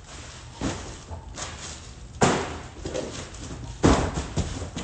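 Four heavy thumps, one to two seconds apart, each trailing off in a short rustle. The second and third are the loudest.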